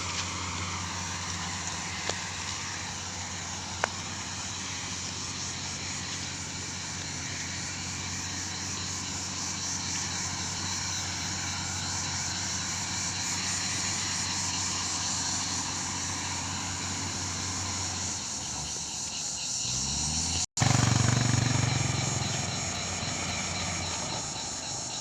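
Excavator's diesel engine running steadily, rising in pitch about nineteen seconds in, then cutting off for an instant and running louder.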